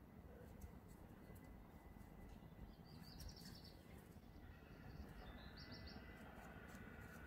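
Near silence: faint room tone with a few light ticks, and two brief high chirping trills, about three and five and a half seconds in.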